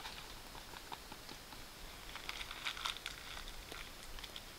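A small food packet crinkling and rustling in hands, with a brief flurry of crisp crackles about two to three seconds in, over a light patter of rain.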